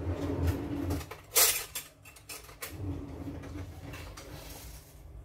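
Kitchen cookware and utensils being handled: irregular knocks and clatters, with one louder sharp clatter about a second and a half in.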